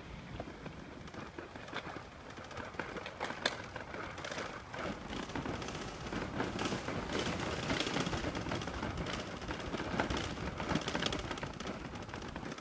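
Irregular clicks and rustling from a handheld camera carried on foot, with footsteps and handling noise, growing busier about halfway through.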